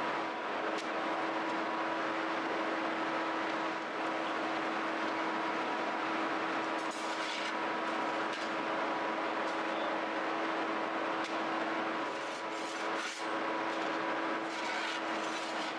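Bakery machinery running steadily with a constant hum, with a few light clicks and knocks over it.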